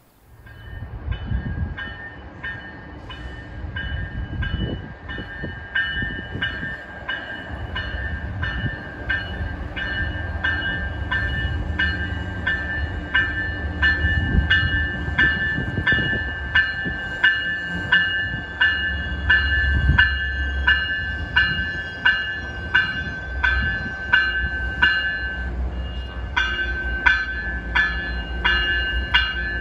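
MBTA commuter rail train, cab car leading with its diesel locomotive pushing at the rear, running into the station: a low rumble that builds as it nears. Over it sounds a steady rhythmic ringing warning signal in quick, even strokes.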